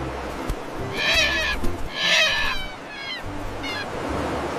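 Seagulls calling: harsh, mewing cries, two long loud ones about a second and two seconds in, then two shorter falling calls, over a steady rushing background like surf.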